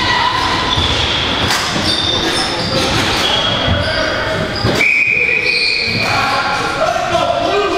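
Box lacrosse play echoing in an arena: short high squeaks of shoes on the floor, scattered knocks of ball and sticks, and shouting voices.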